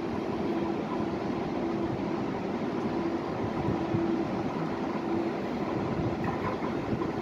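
Metrovalencia electric train at a station platform, its motors and onboard equipment giving a steady hum that fades in and out over a constant rushing noise.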